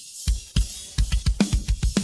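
Isolated rock drum kit track: after a brief lull with only cymbal wash, kick drum strikes come back in a fast run, with snare hits and cymbals over them.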